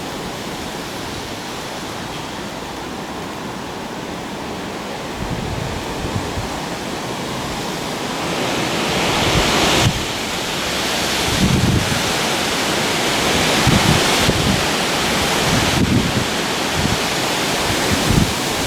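Strong gusty wind rushing, swelling louder about halfway through, with gusts buffeting the microphone in low thumps.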